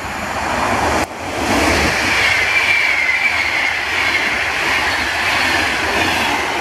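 Siemens EU44 Husarz electric locomotive and its Berlin–Warszawa Express coaches passing close by at speed: a loud rushing of wheels on rail, growing as the train nears. A high whine falls slowly in pitch while the coaches go by.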